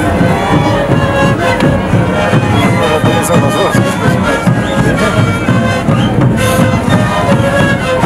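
A sikuri ensemble playing: many sikus (Andean panpipes) blowing a breathy melody in unison over steady bombo bass drum beats.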